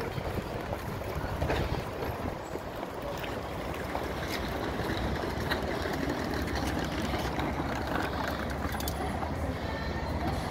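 Steady low rumbling outdoor noise of wind buffeting the microphone, with a few faint clicks and knocks.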